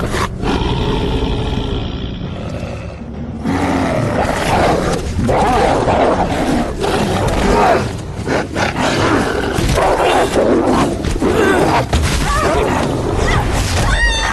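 Film sound of giant wolves growling and snarling in an attack: a steady growl for the first few seconds, then a dense, chaotic tangle of snarls and fighting noise.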